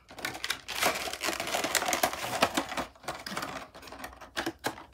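Plastic and cardboard packaging of a Funko Pop box being handled as the figure's stand is taken out: rapid crinkling and clicking for about three seconds, then a few separate sharp clicks near the end.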